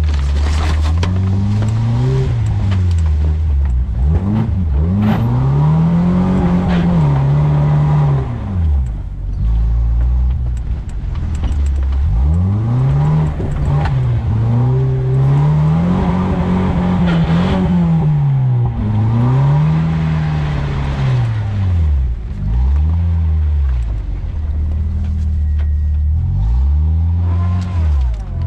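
Truck engine revving hard over and over, its pitch climbing and falling back every second or two as the truck drives through mud, with mud splattering against the body.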